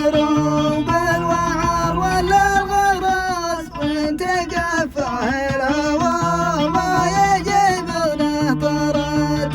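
Male voice singing an Arabic song in a Middle Eastern style, over steady instrumental accompaniment.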